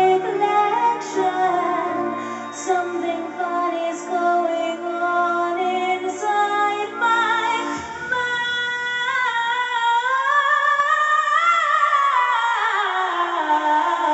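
A woman singing long sustained notes with no clear words over musical accompaniment. About eight seconds in, the low backing drops away and a single long note climbs and then slides back down.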